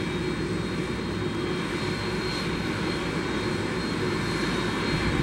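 General Electric CF6-80C2 turbofan engines of an Airbus A300-600ST Beluga running at low ground power, a steady jet whine over a low rumble.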